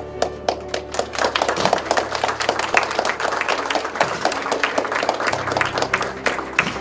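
A crowd applauding: a few scattered claps at first, building to dense, steady applause that stops about six and a half seconds in. Music plays faintly underneath.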